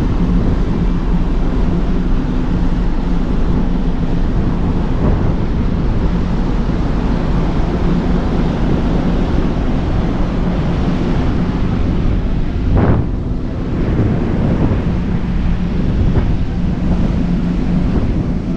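Wind buffeting the microphone over the rush of the sea and a steady low hum from the Sunflower ferry's engines, with one brief louder swell about two-thirds of the way through.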